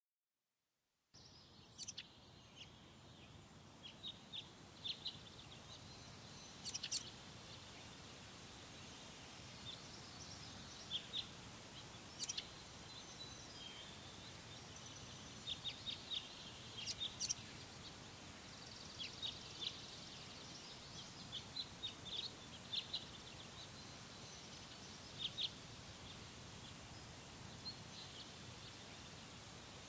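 Faint woodland ambience with small birds chirping: short, high calls scattered through, some in quick runs, over a steady background hiss. It starts suddenly about a second in, after silence.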